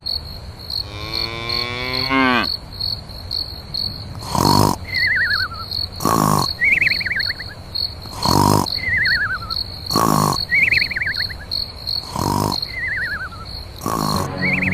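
A cricket chirping steadily, about four chirps a second. Over it come loud knocks about every two seconds, each followed by a short falling, warbling whistle.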